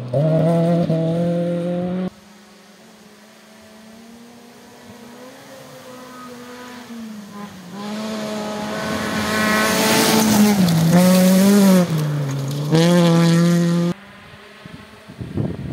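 Rally car engines at high revs on a gravel stage. After a short burst from one car, another car is heard approaching at full throttle, getting steadily louder, with its engine note dropping briefly twice as it shifts or lifts. The sound then cuts off abruptly.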